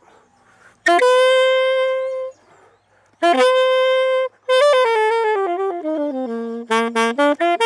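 Solo saxophone playing: a long held note sounded twice, then a quick run of notes stepping down to a low held note, and short, detached notes climbing back up near the end.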